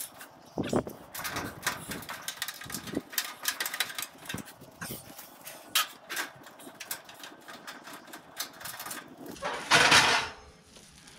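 A ratchet wrench clicking in quick runs as the bolts holding a gas grill's side-burner tray are loosened, with a louder burst of noise just before the ten-second mark.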